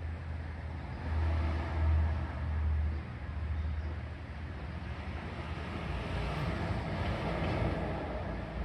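Road traffic: a low engine rumble in the first few seconds, then a vehicle passing, its noise swelling and fading about six to eight seconds in.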